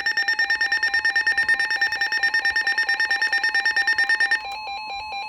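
Electronic emergency alert alarm tone for a tornado warning, pulsing rapidly at about eight beats a second. About four seconds in it switches to a different, warbling tone pattern.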